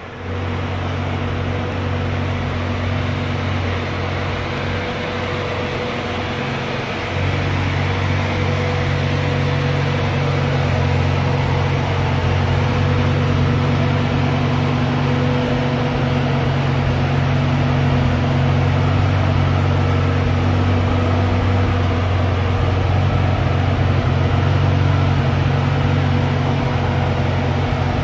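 A 1990 Ferrari Testarossa's flat-twelve engine idling steadily, a step louder from about seven seconds in.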